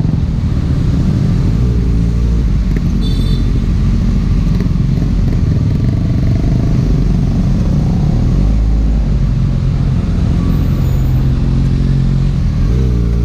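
Kawasaki Ninja ZX-6R inline-four running through an Akrapovic exhaust while the bike is ridden, its note holding fairly steady and wavering slightly in pitch over a steady rush of noise.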